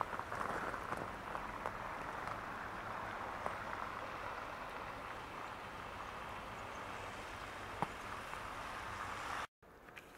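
Steady hiss of car tyres on a wet, slushy road, slowly easing. It cuts off abruptly near the end, leaving a fainter background hush.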